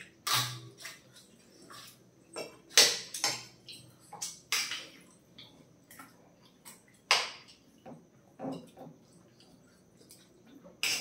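Teaspoons clinking and scraping against a steel plate and a ceramic plate as two people eat parotta in curry: irregular sharp clinks and short scrapes every second or two, the loudest about three seconds in.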